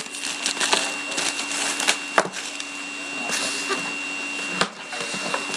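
Hockey trading cards and their packaging being handled, a dense rustling with many small sharp clicks and scrapes.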